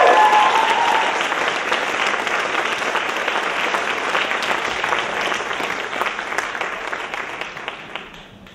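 Audience applauding, with a single high cheer ringing out over the clapping in the first second; the applause fades away toward the end.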